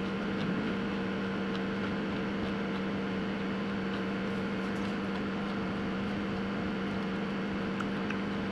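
A steady mechanical hum with a low tone and a fainter higher one, with a few faint clicks.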